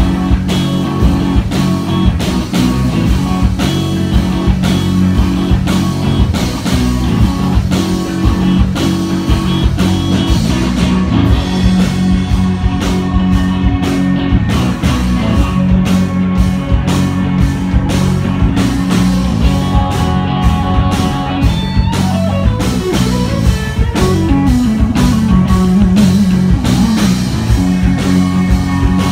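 Live rock band playing loud: electric guitars over a steady drum-kit beat. About three-quarters of the way through, a guitar line slides down in pitch.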